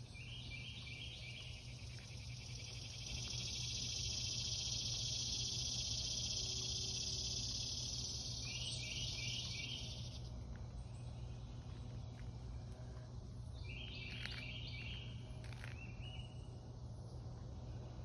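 Insects buzzing in the trees: a long, even, shrill drone swells in about three seconds in and stops about ten seconds in, with short bursts of rapid chirps three times. A steady low hum runs underneath.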